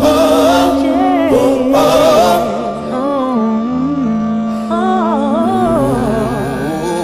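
Background music: a long held low drone note under a winding, wavering melody line, with a couple of noisy swells in the first two seconds or so.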